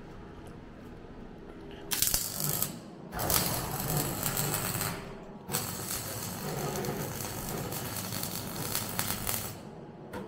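MIG welding arc crackling on steel car bodywork in three runs: a short burst about two seconds in, a longer one of about two seconds, then a steady run of about four seconds that stops near the end.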